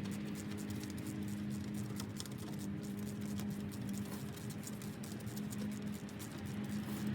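Faint, irregular light clicking and scraping of hand tools over a steady low hum.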